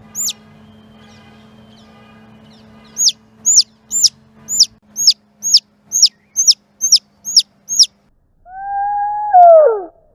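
Feral chicken chick peeping for its mother: a quick run of short, high, downward-slurred peeps, about two a second, starting about three seconds in. Near the end a single peep is played slowed down, turning it into one long, low call that drops sharply at its end.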